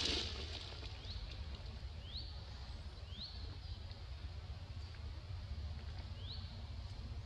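A bird repeating a short, high, upward-sweeping chirp roughly once a second, over a steady low background rumble.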